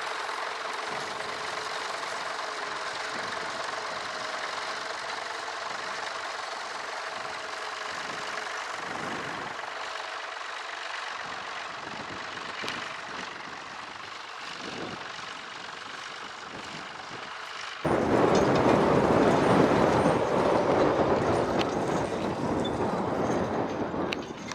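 Tractor engine running steadily with a wavering hum. About 18 seconds in, the sound cuts abruptly to a much louder, rougher engine noise.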